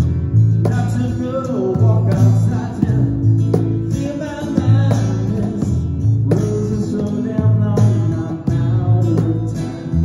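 A small acoustic band playing a country-style song: a woman singing over strummed acoustic guitar, with an electric bass playing sustained low notes and a cajon tapping out the beat.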